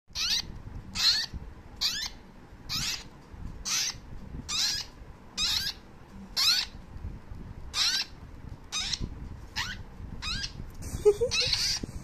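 Hungry parrot chicks giving food-begging calls while being hand-fed formula from a spoon: short, high, rising cries repeated about once a second.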